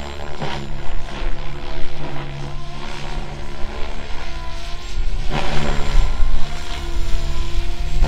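SAB Goblin Kraken 580 12-cell electric RC helicopter flying 3D aerobatics: a steady motor and rotor drone with the blade noise swelling loudly several times as it flips and changes pitch, the biggest surge about five to six seconds in.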